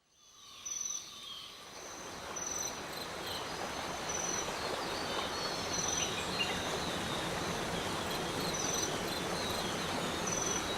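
Steady rushing of a monsoon-swollen waterfall, fading in over the first couple of seconds, with an insect's short high chirps repeating every second or two.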